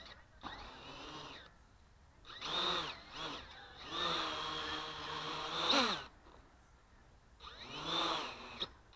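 XK X350 quadcopter's motors revved in four short bursts while it sits on the grass, the whine rising and falling in pitch with the throttle. The longest burst comes in the middle, holds steady, then sweeps up and cuts off.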